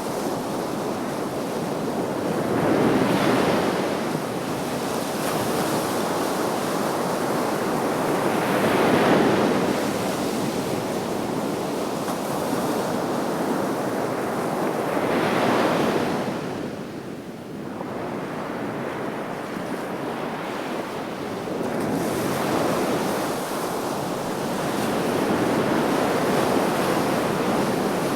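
Sea waves breaking and washing on the shore, with three distinct swells peaking about three, nine and fifteen seconds in, then a steadier wash of surf. Some wind noise on the microphone.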